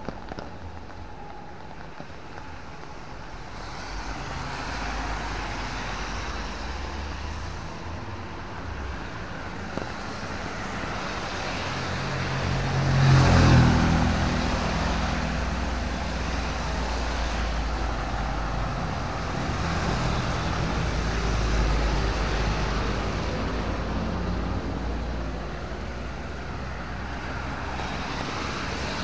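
Steady rain with a motor vehicle passing on the wet road. Its engine and tyre hiss build to the loudest point about halfway through, then fade back into the rain.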